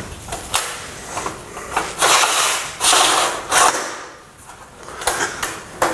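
Aluminium extension arm of a mitre saw stand being slid out along its rail: a metallic sliding noise with several clicks, the longest and loudest slide starting about two seconds in.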